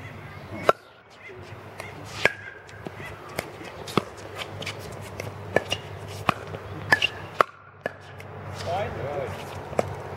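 Pickleball rally: paddles striking a hard plastic pickleball, plus the ball's bounces, as a string of sharp pops. The loudest comes about a second in on the serve, and the exchanges come quicker near the middle.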